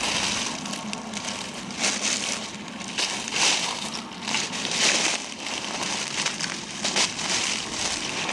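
Footsteps crunching through dry leaves, twigs and brush underfoot: a handful of irregular steps, each a short rustling crunch.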